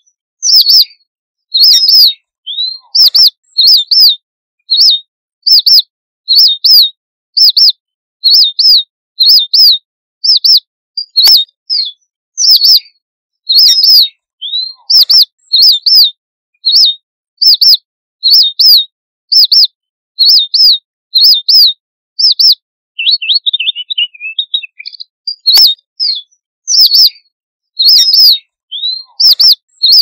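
Red munia (strawberry finch) giving its flock-gathering call: short, high chirps repeated over and over, often in pairs. About three quarters through there is a brief, lower, descending twitter.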